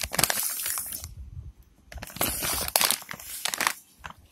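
Plastic packet of frozen french fries crinkling and rustling as it is handled and turned over, in two bursts with a short pause about a second in.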